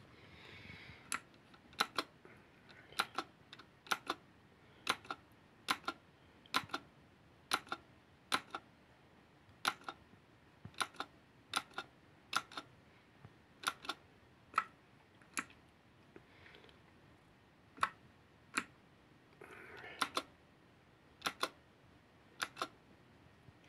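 Keys of a V900 mechanical keyboard pressed one at a time, slowly and unevenly, each a sharp click, often two close together, about one press a second.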